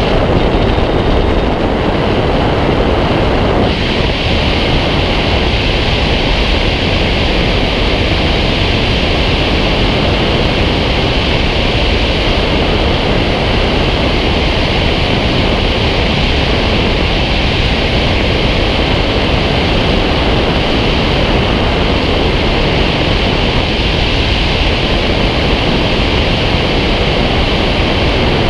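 Loud, steady rush of airflow over a camera mounted on the wing of a Fox aerobatic glider in flight, buffeting the microphone.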